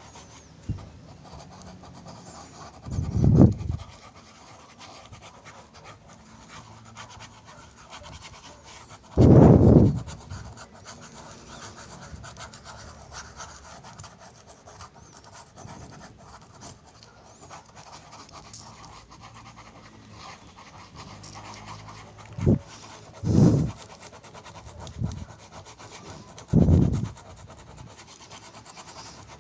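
Ballpoint pen scribbling on lined notebook paper, a faint steady scratching, broken by several loud, low, muffled puffs at irregular intervals.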